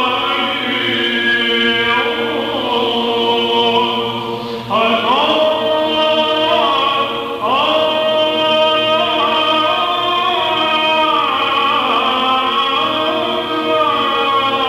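Byzantine chant: a voice winding through a melody over a steady held drone (ison), with two brief breaks, about five and seven and a half seconds in.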